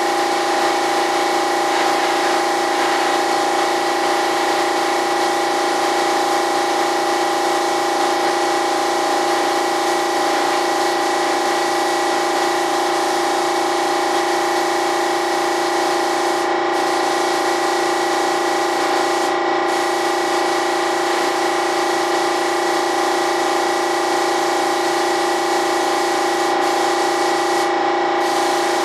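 Paint spraying equipment running continuously: a steady motor hum with a hiss of air and spray. The hiss drops out briefly a few times.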